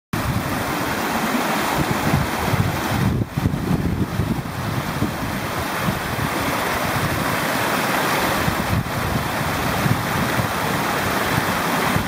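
Stream water rushing steadily over a low stone weir, a continuous roar of white water, with a gusty rumble of wind on the microphone.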